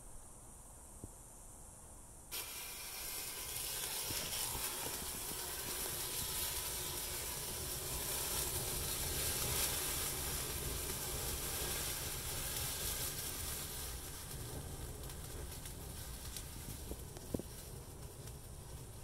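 Thermite charge in a tree stump catching about two seconds in with a sudden loud hiss, a steady rushing fizz that holds for about twelve seconds and then eases off as the reaction burns out, leaving the stump burning with a quieter hiss. One sharp pop near the end.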